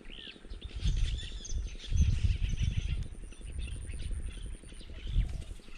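Small birds chirping and twittering around a riverbank, with low rumbles on and off, strongest around two seconds in.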